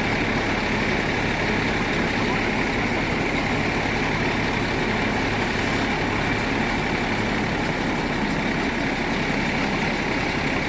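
A machine running steadily, with a constant low hum and a hissing whir that does not change.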